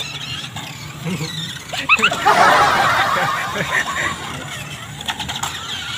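A child's giggling and indistinct chatter, loudest about two to three seconds in, with a few light clicks around five seconds in.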